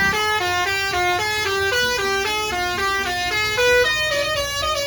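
Basuri musical bus horn playing a quick tune, stepping from note to note every fraction of a second.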